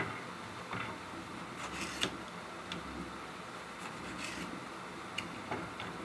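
Scattered light clicks and taps of tomato and cucumber slices and a knife against a ceramic plate as the slices are set out, about half a dozen in all, the sharpest about two seconds in.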